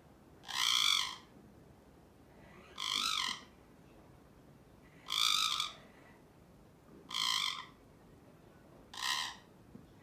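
Alexandrine parakeet giving five short, harsh calls, about two seconds apart.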